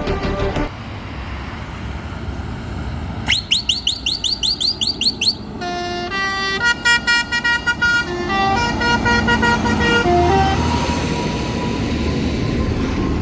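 Fendt tractor towing a Vredo VT4556 slurry tanker drives past with its engine running while a musical air horn sounds: first a string of quick rising whoops, then a short tune of stepped notes. Toward the end the tractor and tanker pass close, and the engine and tyre noise grows louder.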